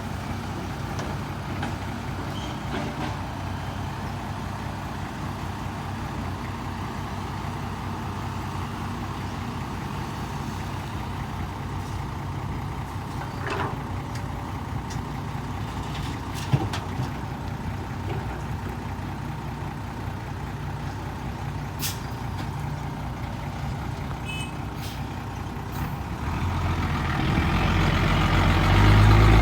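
Turbo diesel engine of a Hino FN527 ten-wheel dump truck, fitted with a 4-inch S-shaped exhaust, running steadily at low revs with a few short clicks and hisses. About 26 seconds in, the engine note builds and grows much louder as the truck is revved or pulls away.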